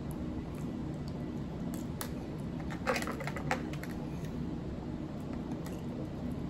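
Mukbang eating sounds: a short cluster of sharp clicks and smacks about three seconds in, over a steady low background hum.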